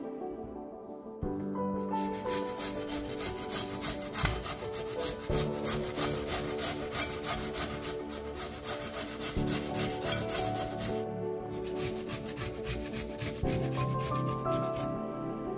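Peeled raw potato being grated on a flat stainless-steel hand grater: quick rasping strokes, several a second, starting about a second in, with a short pause about two-thirds of the way through.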